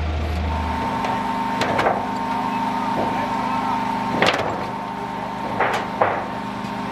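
A vehicle engine running steadily, with a steady high whine over it, and several sharp knocks and clanks, the loudest about four seconds in.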